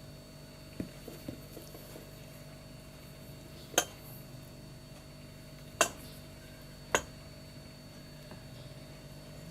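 A few faint taps, then three sharp clinks of hard objects, the second two about a second apart, over a steady low hum.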